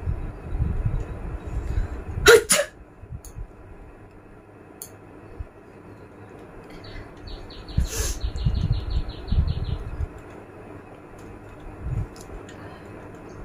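A woman sneezing: a sharp, loud two-part sneeze about two seconds in, then a shorter sharp burst about eight seconds in.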